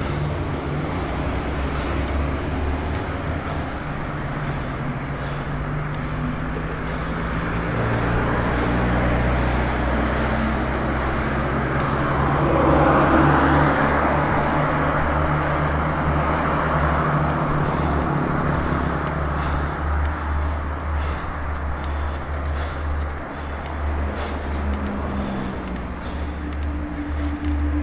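Road traffic heard from a moving bicycle: cars running past over a steady low rumble, with one vehicle passing close and loud about twelve to sixteen seconds in, swelling and then fading.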